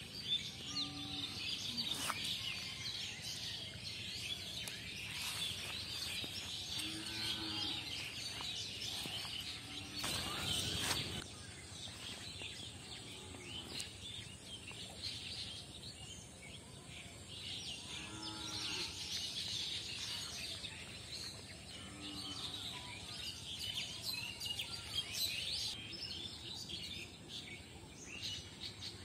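Outdoor ambience of many small birds chirping continuously, with a few lower calls now and then. A brief rush of noise comes about ten seconds in.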